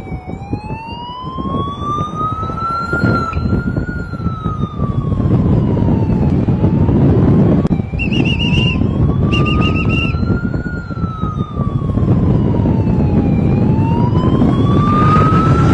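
Police escort siren wailing, its pitch sweeping slowly up and down about every six seconds. About halfway through, a second, higher siren gives two short fast warbles, while a noisy rumble underneath grows louder toward the end.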